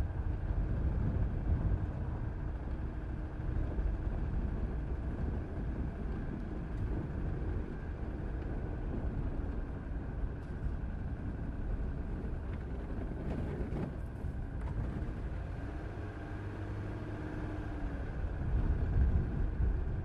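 Car driving at a steady pace: a low, even rumble of engine and road noise.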